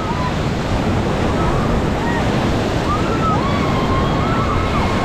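Whitewater rapids rushing and crashing around a raft as it runs through a rapid, with wind on the microphone. Faint voices call out over the water in the second half.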